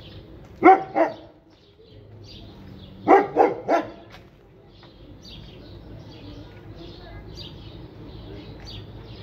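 A dog barking in short sharp barks, two about a second in and three more about three seconds in.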